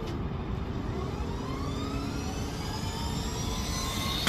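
Helicopter turbine engine spooling up: a rising whine made of several tones climbing steadily in pitch from about a second and a half in, over a steady low rumble.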